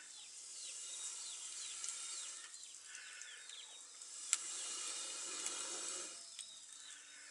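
Chicken sausages frying in a pan of oil over a wood fire, a steady hiss. A bird calls in a run of short falling chirps during the first half, and there is one sharp click about four seconds in.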